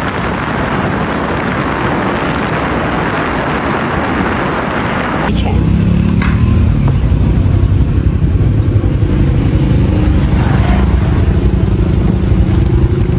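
Wind rushing over the microphone on a moving motorbike. About five seconds in, after a cut, this gives way to a steady low engine hum.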